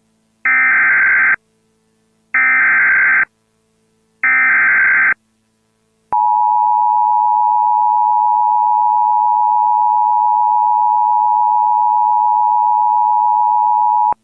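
Emergency Alert System SAME header: three short bursts of warbling digital data tones about a second apart, then the two-tone EAS attention signal (853 and 960 Hz) held steady for about eight seconds. The header bursts encode the alert, here a severe thunderstorm warning.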